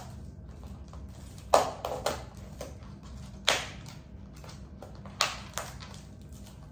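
Plastic takeaway food packaging being handled and opened by hand: about six sharp crinkles and taps, spaced a second or two apart, the loudest about a second and a half in, over a faint steady hum.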